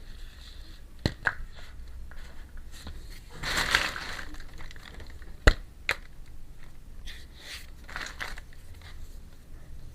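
Handling of a miniature plastic toy kitchen set: small plastic pieces click and tap sharply a few times, the loudest about five and a half seconds in, with a crinkling rustle of packaging near the middle.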